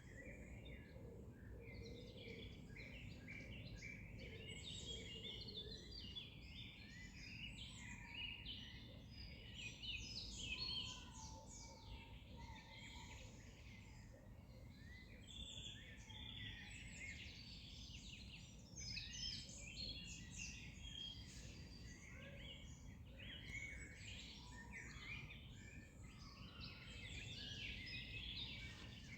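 Many songbirds singing at once, a dense chorus of overlapping chirps and short trills, over a steady low background rumble.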